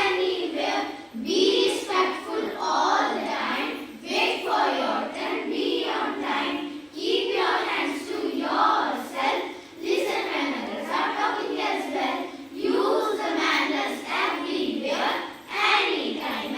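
A group of children singing together in unison, a steady run of young voices with short breaths between phrases.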